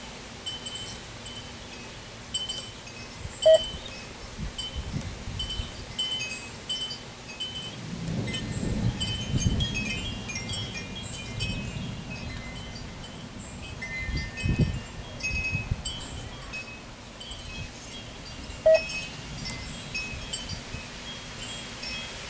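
Wind chimes tinkling irregularly in a gusty wind, many light high notes, with two louder strikes about three and a half seconds in and again about nineteen seconds in. A low rumble swells up in the middle and again a little later.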